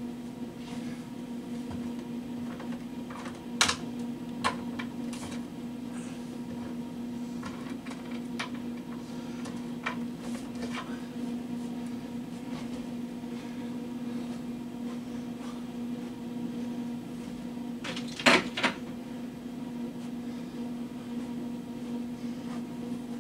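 Scattered light knocks and clicks of things being handled and set down, two of them louder, about four seconds in and about eighteen seconds in, over a steady electrical hum.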